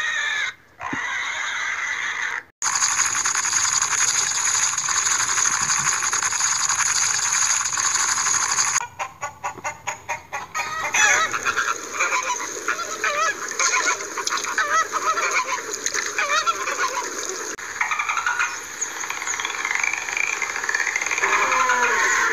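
Animal sound clips spliced one after another, changing abruptly about two and a half seconds in and again later. A steady hiss comes first, then a long stretch of honking, goose-like bird calls, then other pitched calls near the end.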